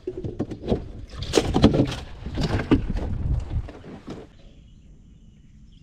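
Plastic Igloo cooler lid being opened and shut as a bluegill goes into the cooler: a run of knocks and thumps lasting about four seconds.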